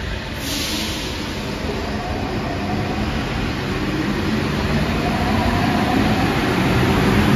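Paris Métro line 14 rubber-tyred train pulling out of the station: the traction motors whine, rising in pitch and growing louder as it accelerates. A short hiss comes about half a second in.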